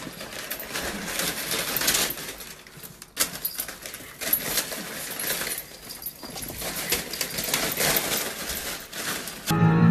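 Paper crinkling, rustling and tearing in irregular bursts as a small puppy plays in torn wrapping paper. Music starts just before the end.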